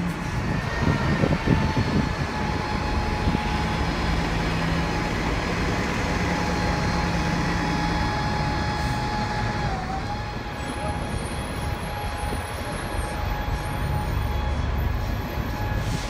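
Transit buses idling at a bus stop: a steady engine hum with a thin high whine held over it, which dips briefly about ten seconds in.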